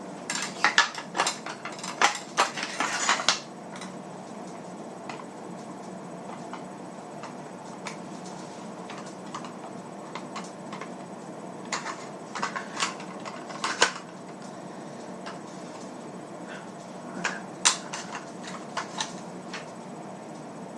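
Metal shotgun parts clicking and clinking as the gun is put back together by hand, in three bursts of sharp knocks and clacks: a dense one near the start and two shorter ones later, over a steady background hiss.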